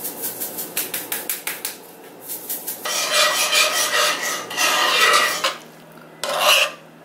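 A fast run of sharp clicks for the first couple of seconds, then a utensil stirring and scraping around a pan of thick, sticky sauce, in long strokes and then short bursts near the end.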